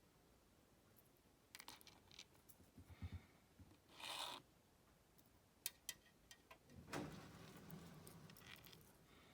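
Quiet small handling sounds at a workbench: scattered clicks and taps, a short scraping or tearing sound about four seconds in, and a longer rustling scrape from about seven seconds, as small tools and materials are handled while making a handmade balsa minnow lure.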